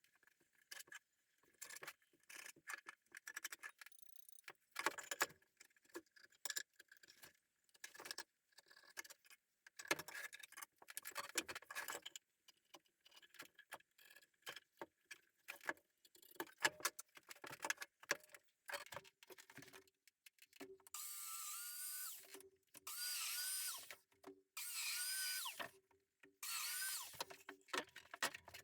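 Scattered knocks and clicks of tools and wood being handled, then, about two-thirds of the way in, a power drill running in repeated short bursts of about a second each.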